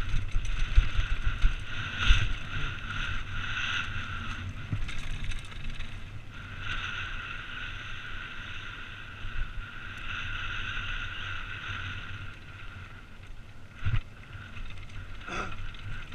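Downhill mountain bike running down a rocky dirt trail, heard from a helmet camera: a low wind rumble on the microphone and rattling over stones, with a steady high buzz that swells and fades. Two sharp knocks come near the end.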